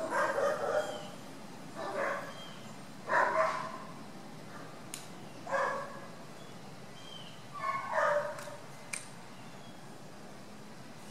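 A dog barking, in five short bouts a couple of seconds apart, with two faint sharp clicks between them.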